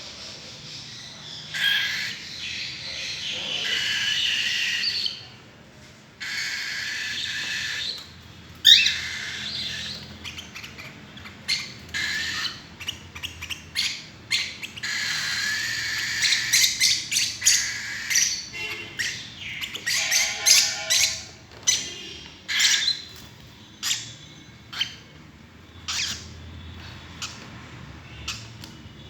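A group of pet lovebirds and cockatiels chattering, with rapid high chirps and sharp squawks overlapping. There is a short lull about five seconds in, then a loud squawk; the chatter gets busier and more broken up in the second half.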